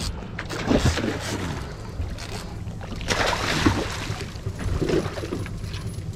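Boat at sea: wind buffeting the microphone and water rushing, over a steady low hum, with louder gusts about a second in and again about three seconds in.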